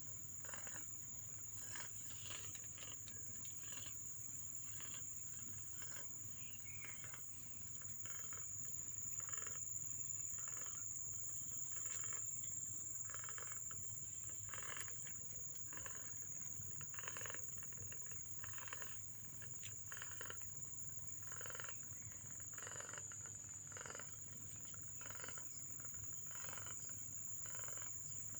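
Week-old kittens mewing in many short calls, coming irregularly, over a steady high-pitched insect drone.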